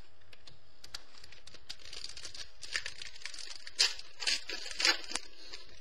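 Football trading cards being handled and slid off a stack one by one: scratchy rustling and light clicks of card against card, with a few louder swishes about four and five seconds in.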